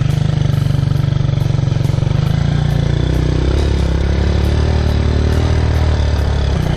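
Hero Honda Ambition motorcycle's single-cylinder four-stroke engine running as it is ridden, heard from on the bike. Its note drops lower about two and a half seconds in and picks up again near the end.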